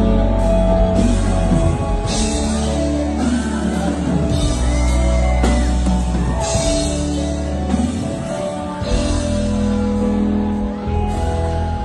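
A live band playing a song with a singer, over a steady bass and drums, with horns such as trumpet.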